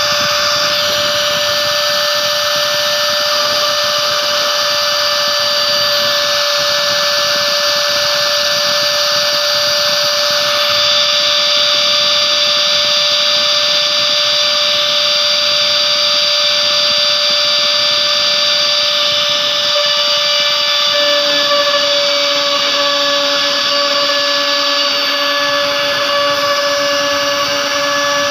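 CNC router spindle running steadily as its fine engraving bit cuts a logo into a thin metal sheet: a steady high whine over a hiss of cutting. About twenty seconds in, a lower hum joins.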